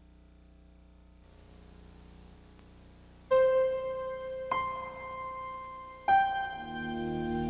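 Soft intro music on a piano-like keyboard. After a few seconds of faint hiss, three single notes are struck one after another, each ringing out, and a fuller sustained chord swells in near the end.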